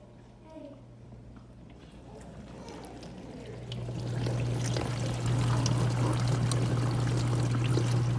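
KitchenAid KDTE104ESS1 dishwasher running, with water rushing inside and a steady low buzz. The buzz grows much louder about three and a half seconds in; it is the unwanted buzzing noise of the machine.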